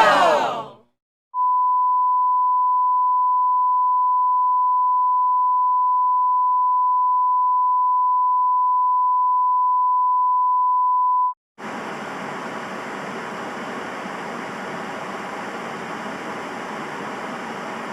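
A single steady, high-pitched beep tone, like a censor bleep or test tone, held for about ten seconds and cutting off sharply. After a short gap it gives way to a steady hiss of static noise.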